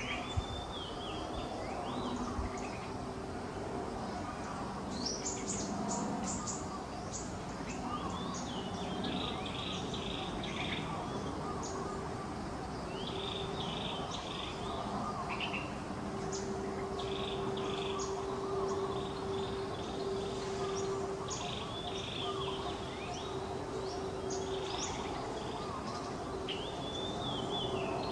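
Birds chirping and trilling in short high calls again and again over a steady outdoor background hum. In the second half a faint, steady low drone runs for several seconds.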